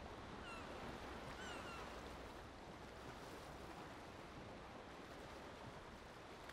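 Faint steady outdoor ambience over a lake, a soft even hiss, with a small bird giving three short falling chirps within the first two seconds.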